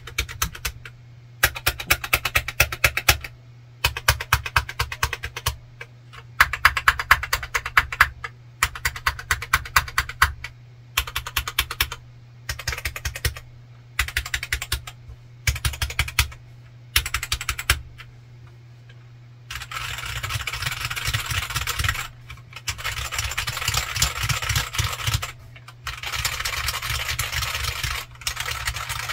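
Stock Royal Kludge RK100 Pro aluminium-cased mechanical keyboard with Gateron Brown switches and PBT keycaps, typed on in quick runs of key clicks a second or two long with short pauses, then continuous two-handed typing from about two-thirds through. The case has no dampening, which leaves the typing sound pingy. Picked up through a phone's microphone.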